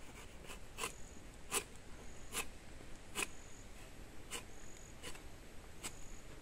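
Footsteps on a forest path, one step a little under every second, with an insect chirping faintly and high-pitched at regular intervals of just over a second.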